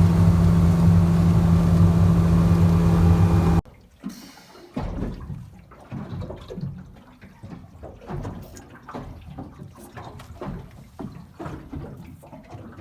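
A motorboat engine running steadily, cutting off abruptly about three and a half seconds in. Then irregular sloshing and lapping of water.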